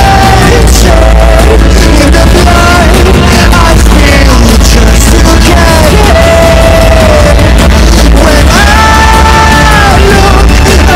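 Loud background music: a song with a singer, who holds long notes about six seconds in and again near nine seconds, over a full band with heavy bass.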